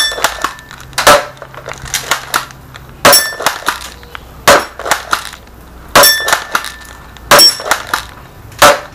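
A D'Cobra Reborn M788 spring-powered airsoft pump shotgun being fired about seven times. Each sharp snap is followed by a quick clatter of smaller clicks as the pump is racked to cock it for the next shot.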